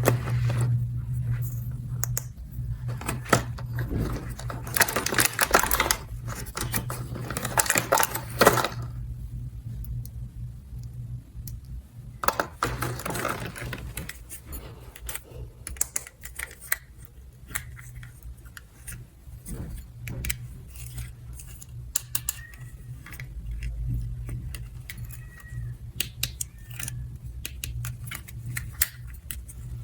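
Small hard plastic pieces being handled, with many light clicks and clatters and two busier stretches of rustling, one over the first third and one around twelve seconds in. A steady low hum runs underneath.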